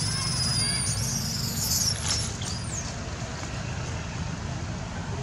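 Baby long-tailed macaque crying: a run of high-pitched squeals and a trembling screech over the first two and a half seconds, ending in a short rising-and-falling call, over a steady low hum.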